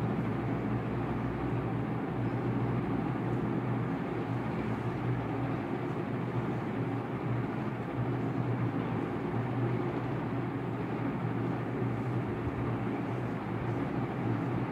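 Steady rumbling background noise with a low hum, unchanging throughout and with no distinct events.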